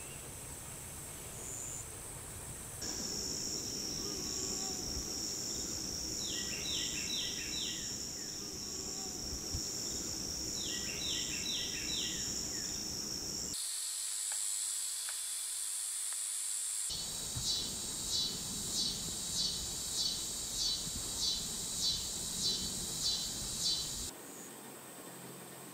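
Woodland insects buzzing in a high, steady drone that changes abruptly at several cuts. Twice, a quick run of four or five falling whistled notes, and later a loud chirping call repeated about twice a second for several seconds.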